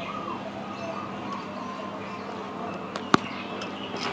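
One sharp click about three seconds in, as a wire lead is worked onto the terminal of a small 12 V battery, over a steady background hum with a faint chirp near the start.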